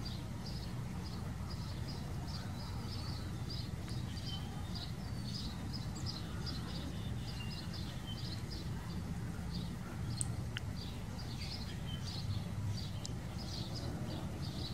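Gray squirrel gnawing an acorn: a long run of quick, scratchy clicks, about three or four a second, with one sharper click about two-thirds of the way through.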